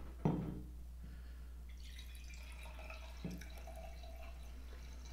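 Red wine being poured from a bottle into a stemmed wine glass: a faint pour of liquid into the glass lasting about three seconds, after a short knock near the start.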